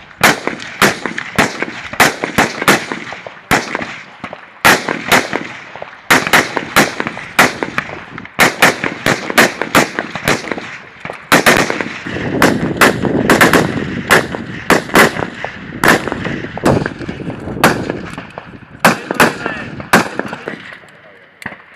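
Several CZ BREN 2 assault rifles firing on a range, a string of sharp single shots at uneven spacing from more than one shooter. Some shots come close together or overlap, and each has a short echo.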